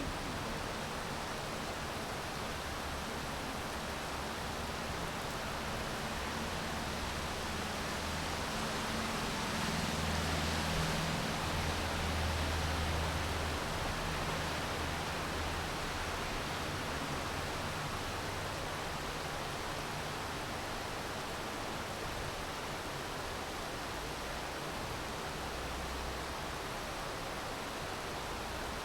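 Steady rain, an even hiss. A low rumble swells about ten seconds in and fades away over a few seconds.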